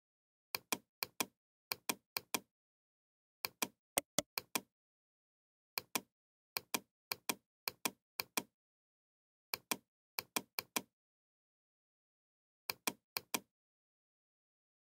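Computer mouse clicking. The short, sharp clicks come mostly in quick pairs, in groups of two to eight, with dead silence between the groups.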